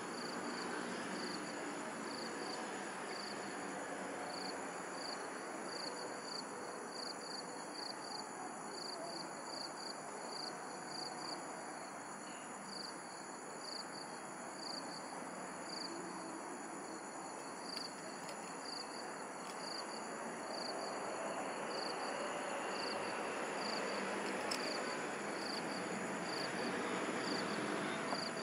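Night insects chirping: short chirps repeating irregularly, with steady high-pitched trilling above them, over an even background hiss.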